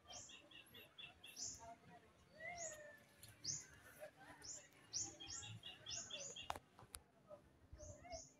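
Small birds chirping faintly: repeated short high chirps, with quick runs of four or five notes in between. A sharp click comes about six and a half seconds in.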